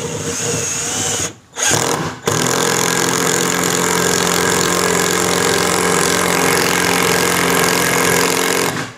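INGCO S12 12 V cordless impact driver driving a hex-head screw into mahogany without a pilot hole, its impact mechanism hammering under load. Two short bursts in the first two seconds, then one long steady run of about six seconds that stops abruptly near the end.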